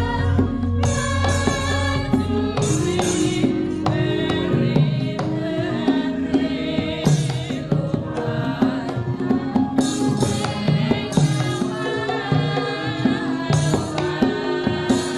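Javanese gamelan music accompanying a wayang kulit shadow-puppet play: sustained pitched metallophone tones over frequent hand-drum strokes, with voices singing.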